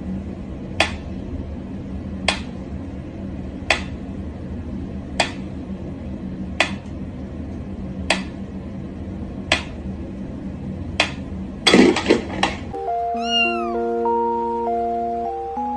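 Mechanical pendulum metronome ticking slowly and evenly, about one tick every second and a half, eight ticks in all. Near the end a short clatter of knocks, then a single falling cat meow over light background music.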